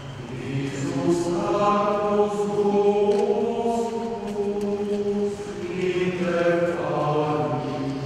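Male choir of clerics singing a liturgical chant in long held notes, in two phrases with a short break about five seconds in.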